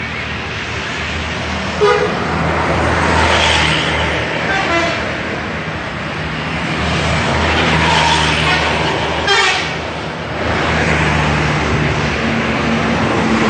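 Indonesian 'telolet' bus horns, multi-tone musical air horns, tooting in several bursts over a steady low engine hum.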